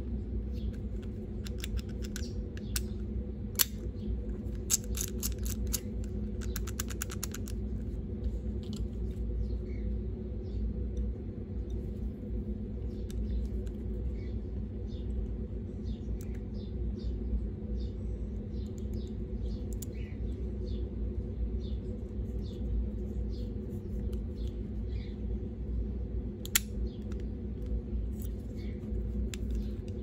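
Small metal clicks of a four-digit combination padlock's number wheels being turned and probed with a thin pick. There is a fast run of clicks about five to seven seconds in, and a sharper click near the end, over a steady low hum.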